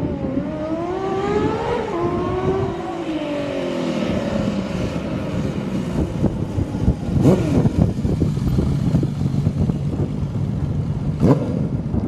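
Honda CBX 1050's air-cooled inline-six engine revving: the pitch climbs for about two seconds, then falls away over the next few. It then settles to a steady low note, with two short sharp blips later on.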